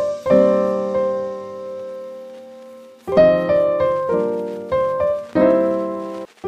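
Background piano music: a chord rings and slowly fades for a couple of seconds, then a run of struck notes picks up again about three seconds in.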